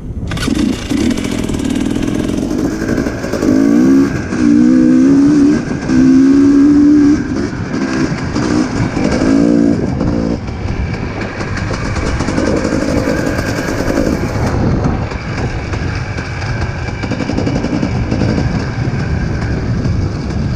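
Dirt bike engine being ridden on a dirt trail, revving up in several rising pulls and loudest between about three and seven seconds in, then running more steadily.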